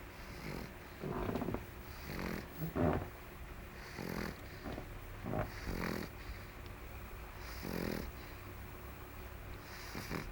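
Pug snoring: short snores every second or two, some coming in quick pairs.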